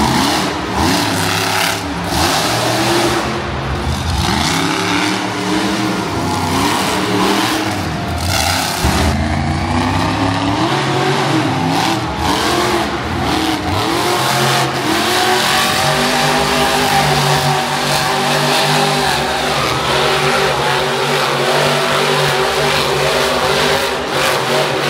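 Monster truck engine revving up and down over and over, then held at steadier revs over the last several seconds.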